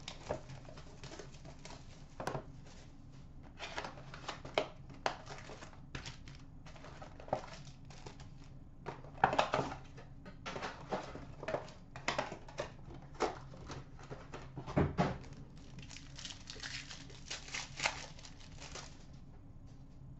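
A cardboard hobby box of 2012-13 Panini Certified hockey cards being opened and its packs pulled out, then a pack wrapper torn open and crinkled: many short sharp rustles and clicks, with a longer stretch of crinkling near the end.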